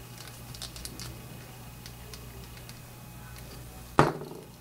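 Faint, scattered clicks of a small screwdriver driving a tiny screw into a plastic action figure, handled close up. About four seconds in there is a single loud knock on the bench.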